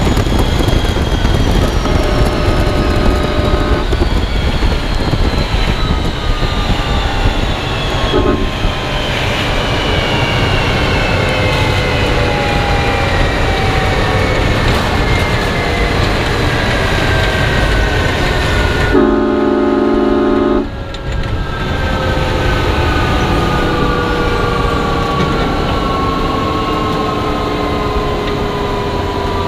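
Jet engine of the Hellfire jet-powered Freightliner semi running on after a drag run, loud and close under the truck. Its turbine whine falls slowly in pitch as the engine spools down. Short steady horn-like tones cut in about two seconds in and again near twenty seconds in.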